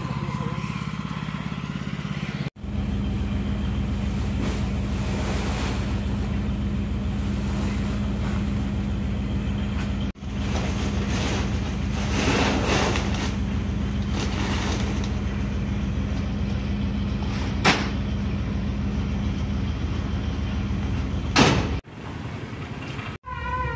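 Steady engine and road noise of a truck being driven, a low even rumble, broken off abruptly a few times by cuts. There are a couple of short sharp knocks near the end.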